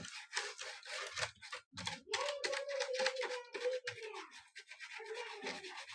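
A small brush scrubbing dust out of a mechanical keyboard with its keycaps removed, in quick scratchy strokes over the plate and switches. A faint steady tone runs under the strokes for about two seconds in the middle.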